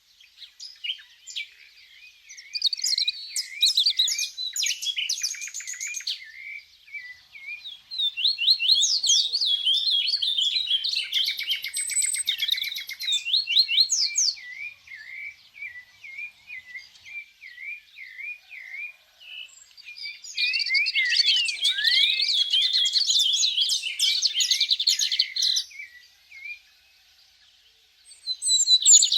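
A songbird singing: three long runs of rapid, varied trills and chirps, with softer repeated chirps between them and a short pause near the end before it starts again.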